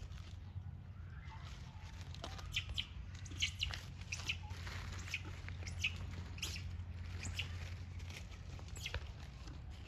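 Short high animal chirps, scattered every half second or so, over a steady low rumble.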